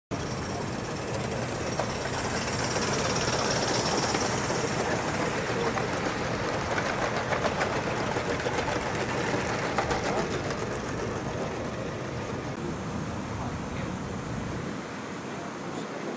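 Miniature railway train running past on raised track: a locomotive hissing, then a quick run of clicks as a rake of small goods wagons rolls over the rail joints, fading away near the end.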